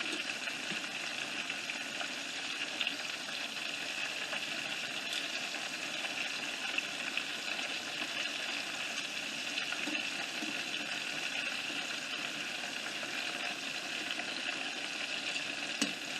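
Breaded green tomato slices deep-frying in hot oil, a steady even sizzle.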